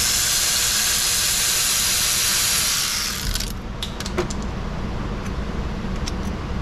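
Pneumatic air ratchet running for about three and a half seconds, a loud hiss of exhaust air over a steady motor whine, as it spins out a timing cover bolt; it cuts off suddenly, followed by a few light metallic clicks.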